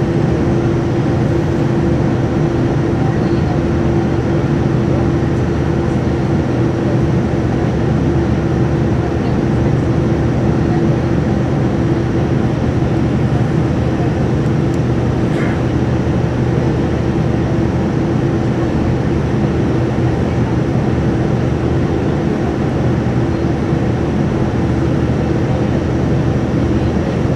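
Steady cabin noise of a Boeing 787-9 descending: an even rush of engine and airflow noise with a steady droning hum.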